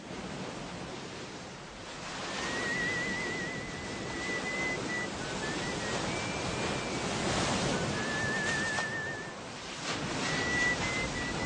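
Sea surf washing in steadily, swelling and easing. From about two seconds in a thin, high wavering tone comes and goes over it.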